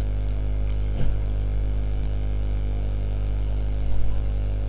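Steady electrical mains hum from the recording setup, with a few faint keyboard clicks as text is typed.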